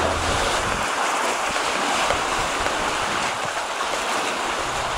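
Steady hiss of sea surf washing, with no distinct events.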